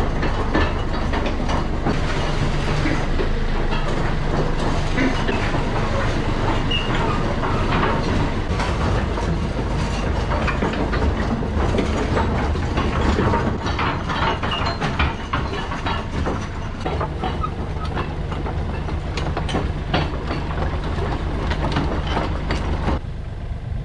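Excavator running and travelling on its tracks: a steady engine drone under irregular clatter and clanking from the tracks and undercarriage. The sound drops somewhat near the end.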